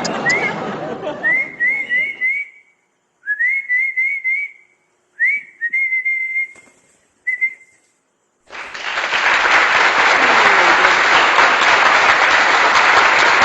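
Short rising whistles in quick runs of three to five, a whistled recall call to a cockatiel. About eight seconds in, a loud steady rushing noise takes over.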